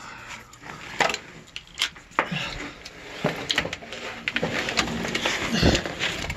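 A run of irregular knocks and clatters in a small, enclosed space, with faint voices in the background.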